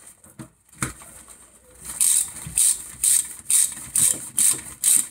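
Socket ratchet wrench clicking as bolts on a new brake disc are tightened, in even strokes about two a second that start about two seconds in.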